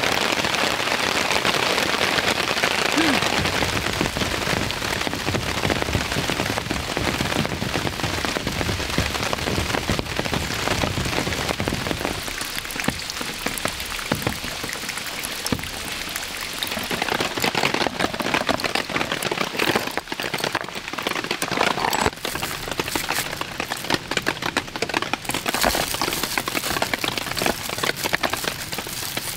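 Heavy rain falling steadily, easing a little about twelve seconds in, with separate drops standing out.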